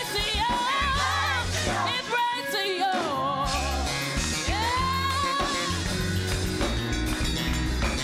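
Live gospel choir performance: a lead singer's voice bends and slides through vocal runs over a bass-heavy band accompaniment.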